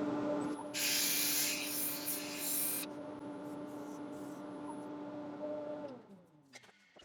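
Wood lathe running at a steady speed with a hum, while sandpaper is pressed against the spinning bowl for about two seconds, giving a loud hiss, then lightly touched again. About six seconds in the lathe is switched off and its hum falls in pitch as it spins down.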